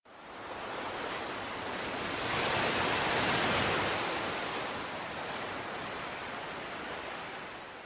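Sea surf washing on a shore, a rushing hiss that swells to a peak a few seconds in and slowly ebbs away.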